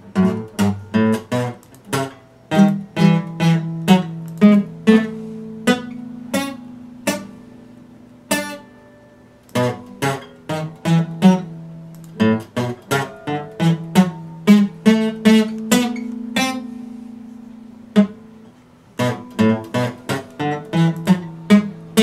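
Epiphone acoustic guitar strummed, chords struck in quick groups with some left to ring, broken by a couple of short pauses.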